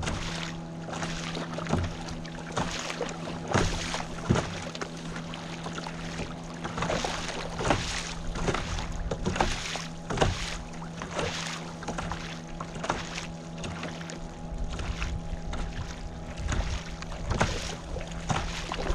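Kayak paddle dipping and splashing in lake water, a splash with each stroke, over a steady low hum.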